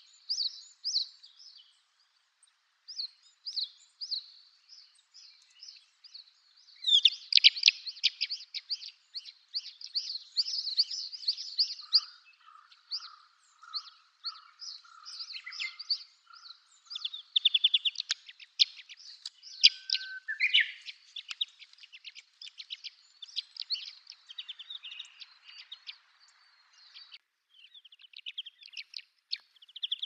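Calandrella larks (ヒメコウテンシ) calling: repeated short, high chirps and twittering in bursts. The twittering is densest and loudest about a quarter of the way in, followed by a lower string of notes.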